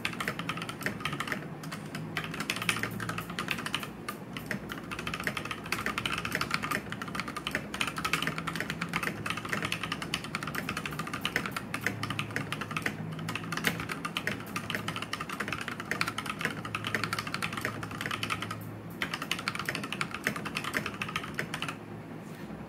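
Continuous fast typing on an Akko 3087 mechanical keyboard with stock, unmodified Akko Pink linear switches: a dense clatter of keystrokes with one short pause late on. The typing stops a second before the end.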